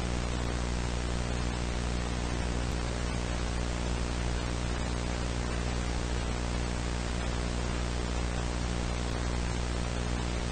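Steady static hiss over a low hum with many overtones, unchanging.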